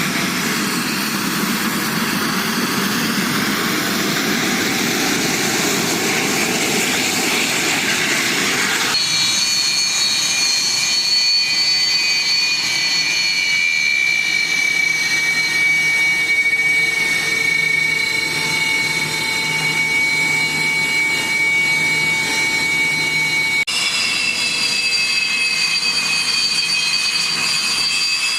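Military jet aircraft engine noise in three cut-together pieces. First a wide rushing jet noise. About nine seconds in it cuts to a steady high turbine whine whose tones slowly fall, and near the end it cuts again to a whine whose tones rise.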